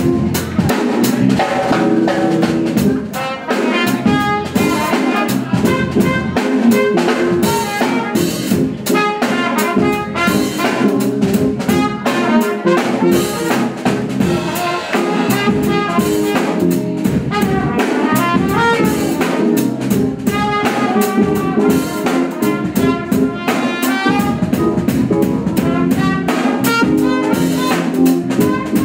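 Live jazz: a trumpet playing over a drum kit.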